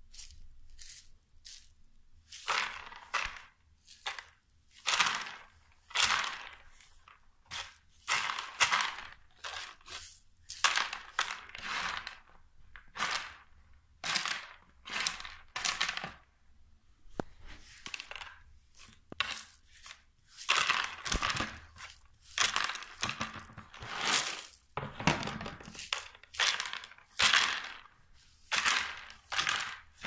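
Dry beans rattling and clattering in a long series of short bursts, each under a second with brief gaps between, some with sharp clicks.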